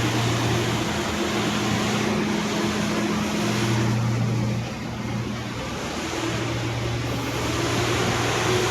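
Heavy diesel engine of earthmoving machinery running steadily. Its hum shifts as the load changes, and the sound drops briefly about halfway through.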